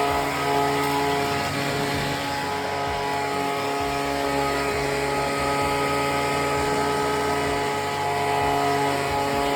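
Small gasoline engine running steadily at a constant speed.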